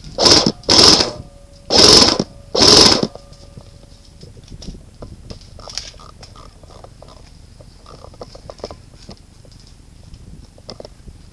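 Airsoft rifle firing four short full-auto bursts within about three seconds, followed by scattered faint pops and clicks.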